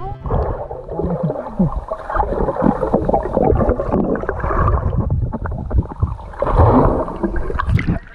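Sloshing sea water and wind on the microphone, uneven and loud, with a few short gliding sounds about a second in.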